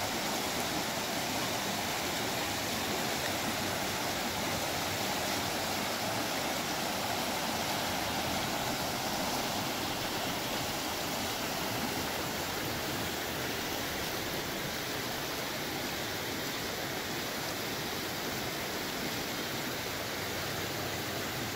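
Fast-flowing river rapids rushing over rocks, high and muddy with whitewater: a steady, unbroken rush of water.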